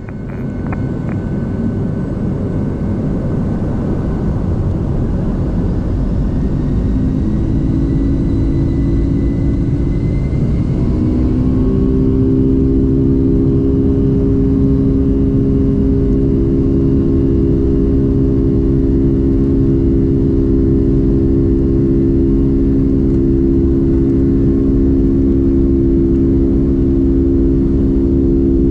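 Boeing 757-200's jet engines spooling up to takeoff thrust, heard from inside the cabin over the rumble of the takeoff roll. The sound swells over the first few seconds, with whines rising for about ten seconds before settling into a steady drone.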